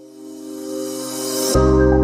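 Background music: a synth swell rising in, cut off about a second and a half in by a heavy bass note and mallet-like melody notes.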